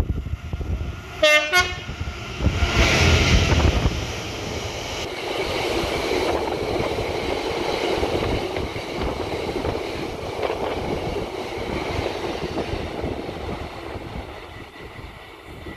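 Train horn sounding a short blast, then a train passing at speed: a loud rush of wheels on rail and air that settles into a steady rumble and fades away near the end.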